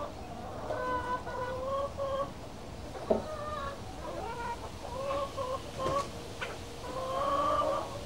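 Domestic chickens clucking and calling, several drawn-out, overlapping calls one after another. A sharp tap cuts in about three seconds in, and another comes near six seconds.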